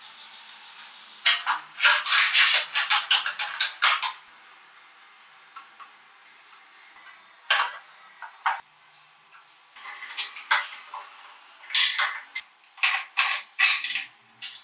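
Light metallic clinking and clattering of motorcycle parts and hand tools being handled during reassembly. It comes in short bursts: a dense run from about a second in to four seconds, a few clinks near eight seconds, and another run from about ten seconds to near the end.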